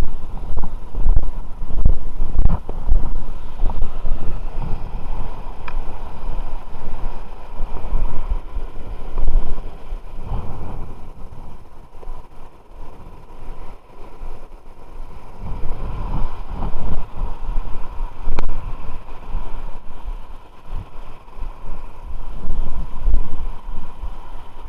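Wind buffeting the microphone in uneven gusts, a low rumble that swells and drops throughout.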